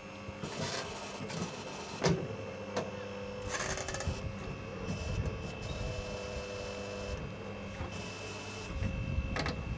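Small electric motor whirring steadily, with a few sharp clicks and knocks; the loudest knock comes about 2 s in, and a low rumble rises near the end.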